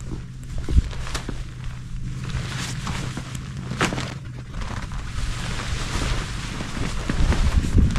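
Nylon tent fabric rustling and flapping as a pop-up hub tent is pulled open, with a few sharp snaps and wind buffeting the microphone in gusts.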